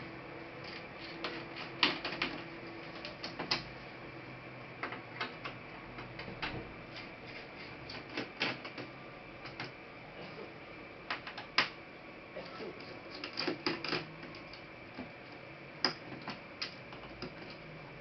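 Irregular small clicks and taps of a Toshiba Satellite C660 laptop's plastic parts and tools being handled as it is taken apart, with a few louder clicks about two, eight and a half, and eleven and a half seconds in.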